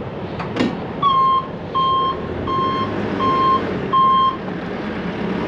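Backup alarm of a reversing machine, sounding five steady beeps a little under a second apart over the low running of a diesel engine.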